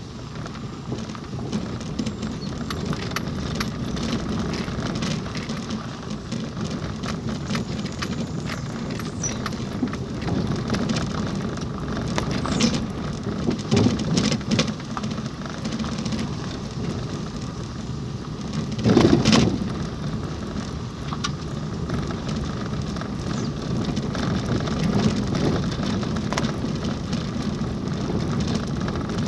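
Car driving on a rough dirt road, heard from inside the cabin: steady tyre and road rumble with scattered clicks of grit and small rattles, a few heavier knocks around the middle and the loudest jolt about two-thirds of the way through.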